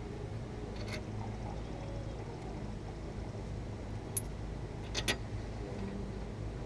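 A few light metallic clicks and clinks of hardware being handled: one about a second in and a small cluster around four to five seconds in, over a steady low hum.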